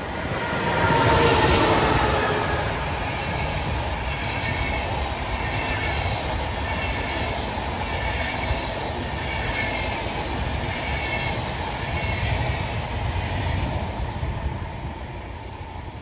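A DB Class 101 electric locomotive hauling an Intercity train passes at speed. The locomotive's rush peaks and drops in pitch a second or two in, then the coaches follow with a steady rumble and wheels beating out a regular rhythm, easing off near the end as the train moves away.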